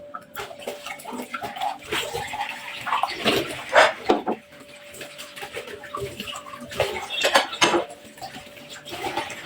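Water running while dishes and utensils knock and clink, as in washing up at a sink. A faint steady hum lasts until about seven seconds in.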